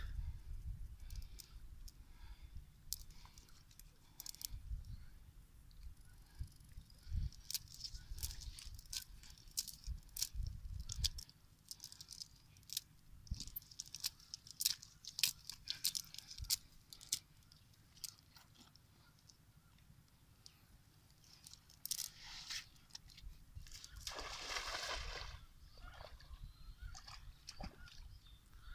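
Wet cast net handled over mud: a run of small clicks and clinks from the net's lead sinkers and mesh, with squelches of mud, thinning out after about half way. A brief rushing noise comes near the end.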